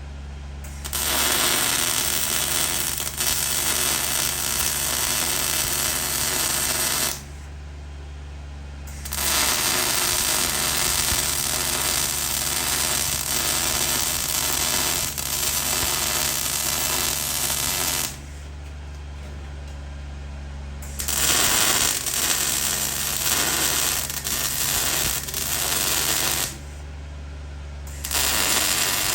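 Welding in runs of several seconds at a time: four long stretches of steady arc crackle, with short pauses between them in which only the welder's steady low hum is heard.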